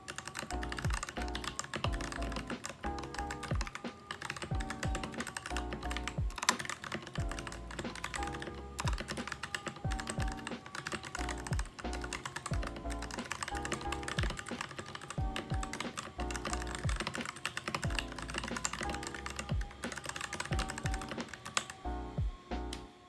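Rapid typing on a mechanical keyboard fitted with Durock T1 tactile switches: a dense run of key clacks over background music with a steady beat. The typing stops about a second before the end, leaving only the music.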